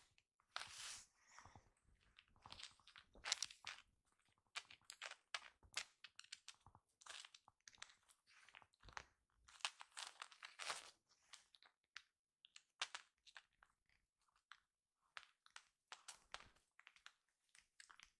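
A kitten's paws and claws scuffing and scratching on a woven floor mat as it pounces on a fabric toy and string, making faint, irregular rustles and crunchy scrapes.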